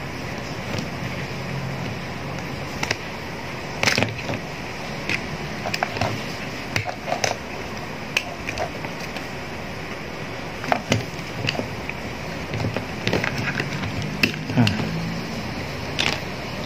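Irregular clicks and light knocks of plastic parts and small tools being handled as a multi-panel LED bulb is taken apart.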